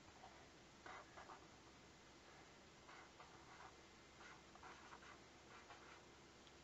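Felt-tip marker writing on paper: a string of short, faint strokes as letters are drawn out one after another.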